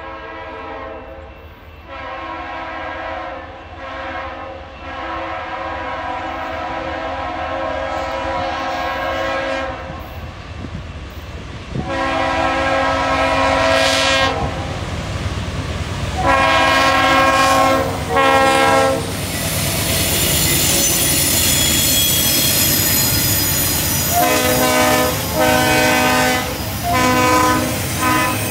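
A CN diesel freight locomotive's air horn sounds a series of blasts as the train approaches, one chord held several seconds and others shorter. As the locomotives reach and pass, engine rumble and a loud wheel-on-rail roar take over, with a thin high squeal from the wheels on the curve, and a few more short horn blasts near the end as the double-stack container cars roll by.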